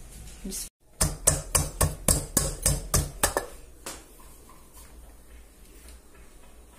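Wooden pestle pounding in a mortar: about a dozen quick, sharp strikes, roughly four a second, over two and a half seconds, then it stops.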